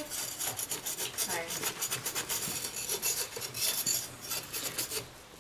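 Metal pizza spatula scraping across a pizza stone as it is pushed under the pizza's base, a rapid run of short rasping scrapes.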